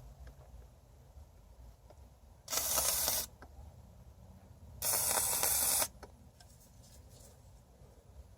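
Aerosol can of contact cement spraying through an 18-gauge hypodermic needle into a car headliner: two short hissing blasts, about two seconds apart, each lasting under a second.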